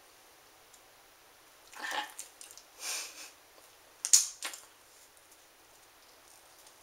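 Breaths and sniffs through the nose, with wet mouth sounds, from a mouth packed with marshmallows: three short bursts about two, three and four seconds in, the last the loudest.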